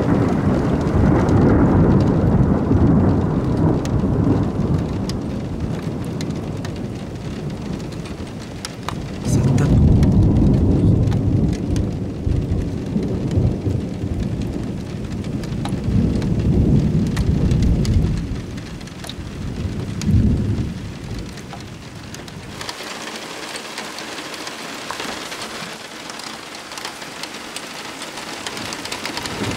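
Thunder rumbling over steady heavy rain, from a strike about 1.7 km away. The rumble comes in several long swells, then stops about 22 seconds in, leaving only the hiss of rain, and a new rumble begins at the very end.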